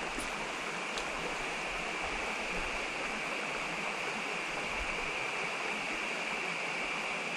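Steady rush of a small creek's flowing water, even and unbroken, with a faint click about a second in.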